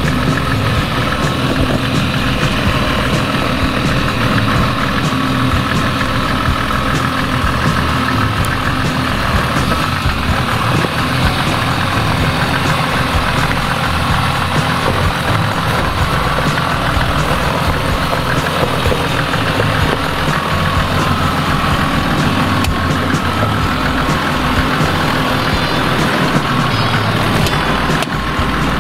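Mercedes G-Class 3-litre diesel engine running at low revs as the 4x4 crawls slowly over a rocky, muddy trail, passing right by near the end.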